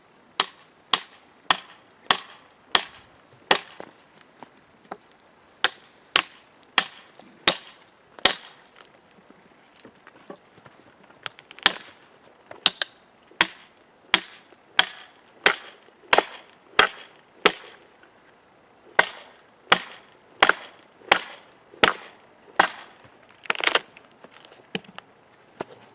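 Repeated chopping into wood with a hand tool: sharp strikes about one and a half a second, with a few short pauses, and a longer scraping clatter near the end.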